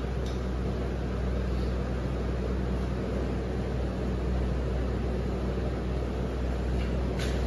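Steady low machine hum, with a single light click near the end.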